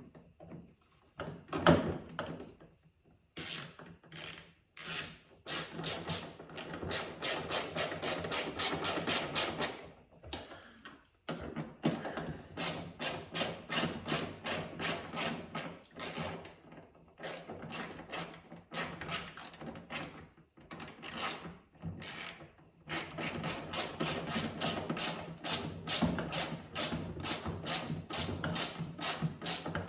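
Hand ratchet wrench clicking in long rapid runs, pausing twice, as the headlight's mounting bolts are turned. There is one louder knock about two seconds in.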